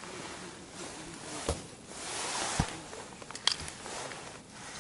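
Tent fabric and clothing rustling as an angler shifts about inside an ice-fishing tent, with three sharp knocks or clicks about a second and a half, two and a half and three and a half seconds in.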